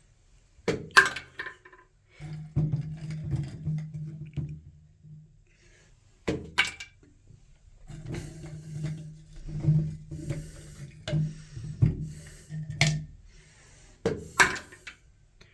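Loose ice cubes clattering and knocking as handfuls of ice are taken out of a fridge's ice bin and dumped, with a few sharp clacks scattered through.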